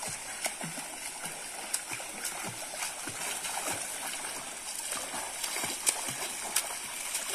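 A swimmer splashing through pool water with arm strokes and kicks, a run of irregular splashes over a steady rush of water.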